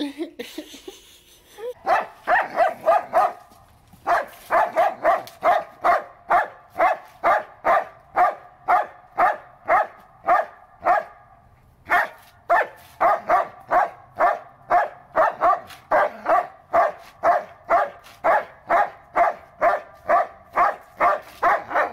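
German Shepherd barking over and over in a fast, even series, about two to three barks a second, with two short breaks.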